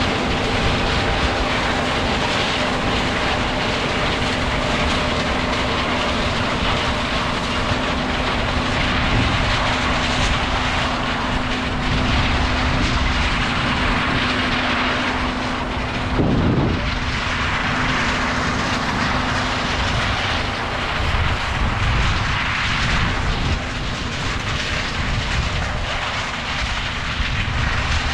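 Large diesel harvest machinery running steadily, with a constant hum and a broad hiss that swells and fades. There is a brief low bump a little past halfway.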